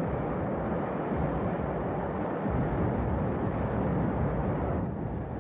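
Low, continuous rumbling roar of a B-52 bombing run, easing off a little near the end.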